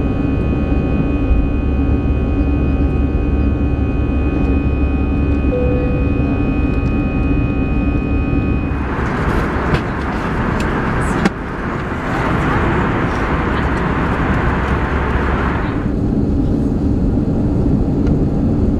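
Airbus A320 engine and cabin noise heard inside the cabin: a steady hum with high, steady whining tones. About nine seconds in the whine gives way to a band of hiss for some seven seconds, with one sharp click partway through, before the steady hum returns.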